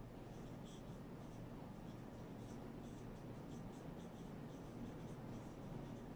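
Whiteboard marker writing on a whiteboard: faint, light squeaky strokes.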